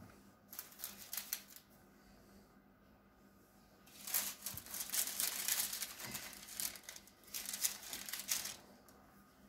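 Baking paper crinkling and rustling as it is smoothed and pressed flat onto a baking tray, in two spells: a short one about half a second in and a longer one from about four seconds in until shortly before the end.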